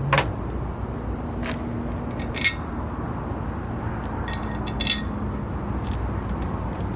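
Small metal hardware clinking and scraping as slot nuts are fitted loosely onto a metal mount bracket: a few light clicks, with short rattling clusters near the middle and about two-thirds through, over a steady low background noise.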